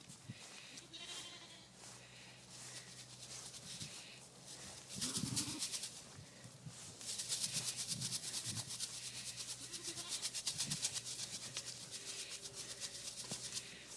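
Sheep bleating a few times, short low calls. From about halfway a rapid, even rustling runs underneath.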